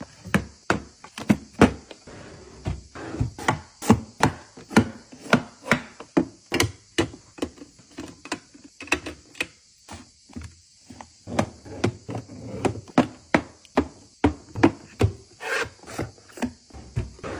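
Makeup products and packaging handled up close: a run of sharp taps and clicks, about two a second, with a short pause about midway.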